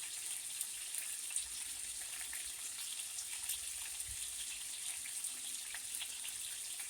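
Cubed chicken thigh and pork sizzling steadily in a hot pan, a constant hiss with scattered small crackles.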